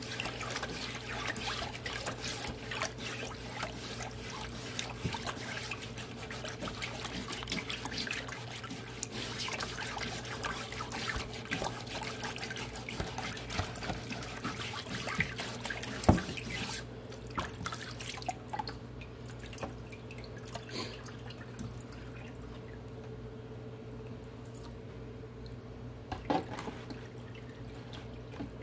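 A plastic dish brush scrubbing a burned wood board under water in a tub, with splashing, dripping and brush scratches, cleaning the char off the burned pattern. About halfway through there is one sharp knock, and the splashing then dies down to occasional drips over a low steady hum.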